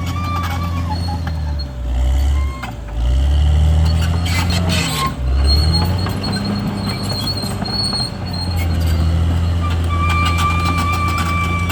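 CAT D6R XL bulldozer's diesel engine running. Its pitch sags and recovers a few times in the first half, as under changing load, then holds steady. A thin high whine comes and goes over it.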